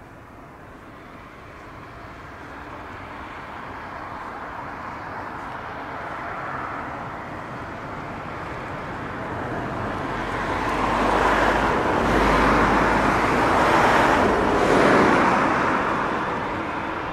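Boeing 727's three Pratt & Whitney JT8D jet engines on final approach, the engine noise growing steadily louder as the airliner closes in and peaking about twelve to fifteen seconds in. A deep rumble joins about ten seconds in.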